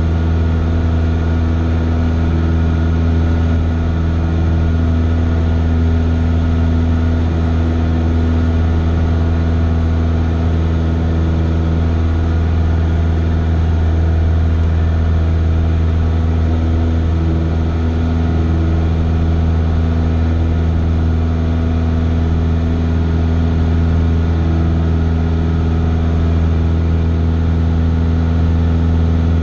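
A Cessna 172's engine and propeller heard from inside the cabin in flight: a loud, steady drone with an even pitch and no change in power.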